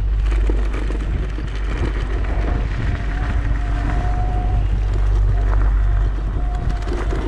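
Wind rumbling steadily over a moving rider's microphone while riding an electric unicycle at speed, with a faint thin whine that comes and goes.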